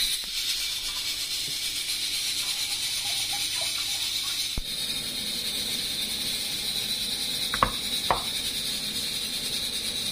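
Metal spoon working a thick tuna, mayonnaise and egg-yolk filling in a plastic bowl and spooning it into halved boiled egg whites, with two short knocks about half a second apart past the middle; a steady high hiss underneath.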